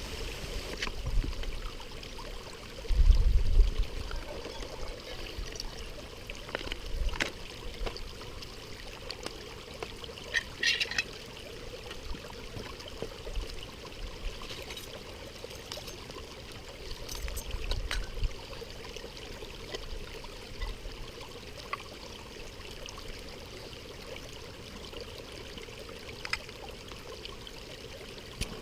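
Running water of a stream, a steady rush with scattered light clicks and knocks. A short low rumble about three seconds in is the loudest moment.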